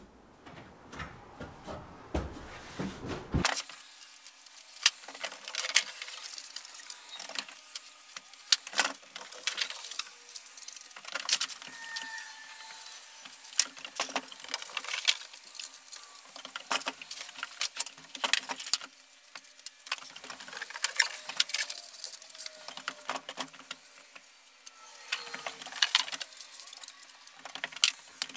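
Irregular clicks, taps and knocks of rigid XPS foam board being handled and fitted between wooden roof rafters, with a few short squeaks.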